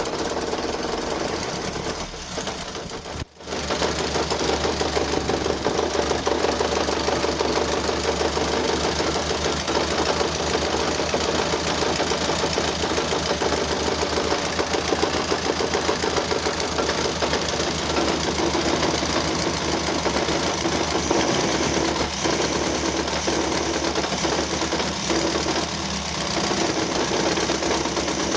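1935 Austin Seven Nippy's small four-cylinder side-valve engine running with a fast, steady mechanical knocking clatter, a sound the owner calls terrible. The sound briefly drops out about three seconds in.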